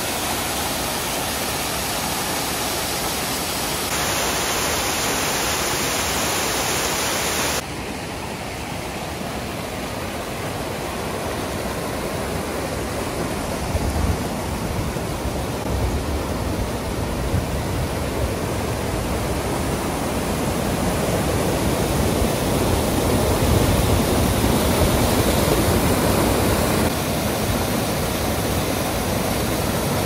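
Steady rushing noise with no distinct events, changing abruptly about four and eight seconds in and again near the end, as at cuts between clips. A deeper rumble grows in the second half.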